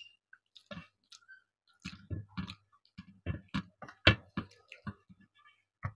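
Close-up chewing and lip-smacking while eating rice and fish curry: a run of short, irregular wet clicks and smacks.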